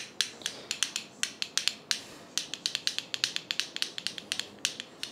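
Homemade finger castanets made of metal bottle caps glued to cardboard, played in the hands: the caps clack together in quick, uneven runs of sharp clicks.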